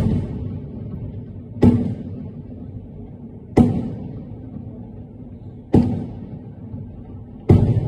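Aerial firework shells bursting: a sharp boom about every two seconds, five in all, each trailing off slowly.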